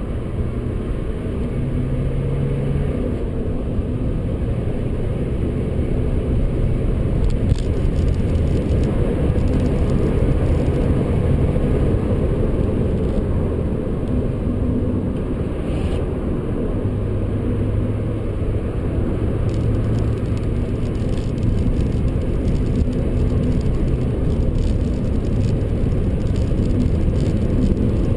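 Cabin noise of a BMW 125d under hard acceleration to high speed: its four-cylinder twin-turbo diesel pulling, with loud road and wind noise. The engine tone shifts as the revs change.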